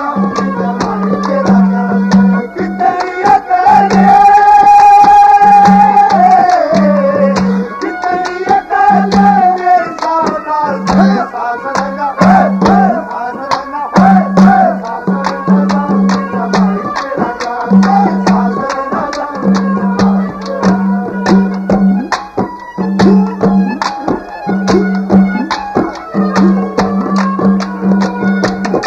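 Instrumental Haryanvi ragni folk music: a hand drum keeps a fast, steady beat under a melody line, which holds one long note a few seconds in before moving on.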